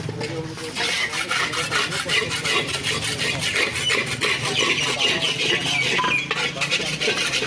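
Scraping and rubbing of a hard tool over the mortar and marble tiles during tile laying: a steady rasping run of fine, rapid strokes starting about a second in.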